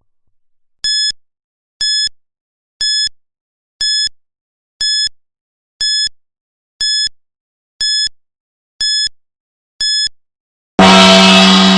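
Countdown timer's electronic beep sounding ten times, once a second, for the last ten seconds. Then a loud gong rings out near the end as time runs up, its low ringing tone dying away slowly.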